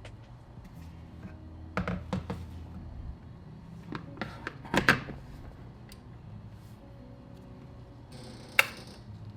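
Knocks and thunks of kitchen items being handled, in small clusters, the loudest about five seconds in, then one sharp click with a brief hiss near the end.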